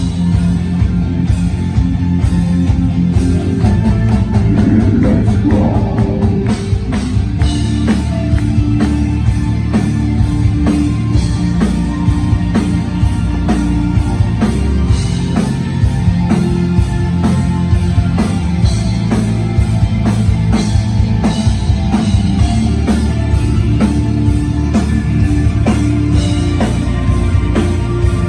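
Live gothic metal band playing loud: distorted electric guitars and bass over a drum kit keeping a steady beat.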